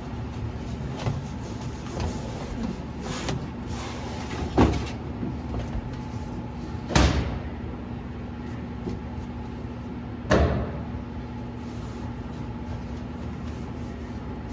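Metal clanks and knocks from hand work on the truck as it is taken apart, three louder clanks a few seconds apart among lighter clicks, over a steady background hum.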